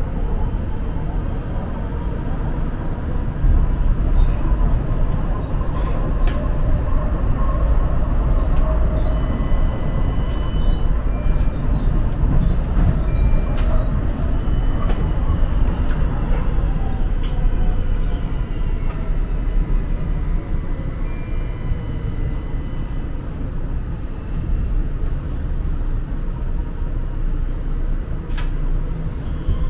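A MetroLink light rail car in motion, heard from inside: a steady low rumble of wheels on track with scattered sharp clicks and faint high squealing tones. Past the middle a whine falls in pitch.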